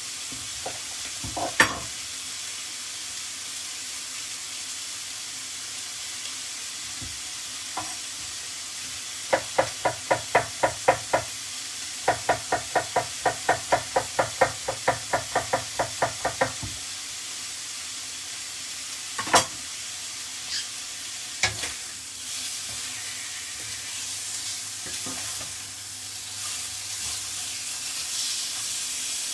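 Chicken breast sizzling in hot oil in a frying pan on high heat. In the middle come two quick runs of evenly spaced clicks, about five or six a second, over several seconds, and a few single sharp knocks.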